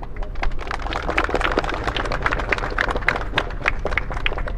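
A group of people clapping, many overlapping hand claps that build up soon after the start and thin out near the end, over a low steady rumble.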